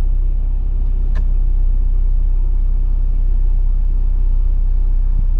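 Jeep Wrangler engine idling, a steady low rumble, with one short click about a second in.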